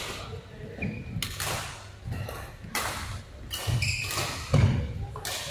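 Badminton players' shoes on a court mat between rallies: scattered footfalls and a few heavy thuds, short high squeaks, and sharp knocks echoing in a large hall.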